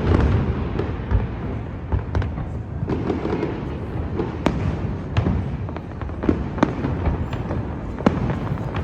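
Close-range aerial fireworks display: a string of sharp bangs at irregular intervals over a continuous low rumble and crackle of shells bursting.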